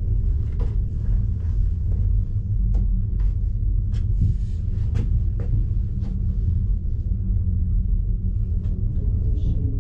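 Steady low rumble inside a moving cable car cabin as it runs along its cable, with a few light clicks and knocks.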